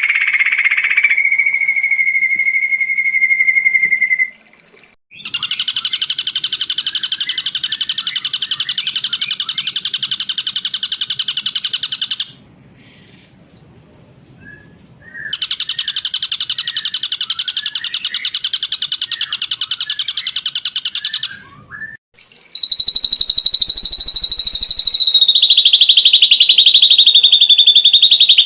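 Ashy drongo singing: a held whistled note, then long runs of very fast, buzzy rattling notes several seconds each, broken by short pauses.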